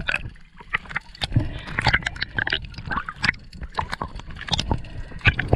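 Water sloshing and gurgling, with many irregular small knocks and clicks.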